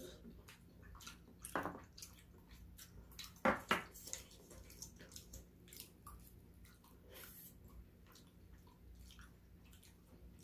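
Close-miked eating sounds: a person chewing food wetly, with many small mouth clicks and a couple of louder wet sounds about one and a half and three and a half seconds in.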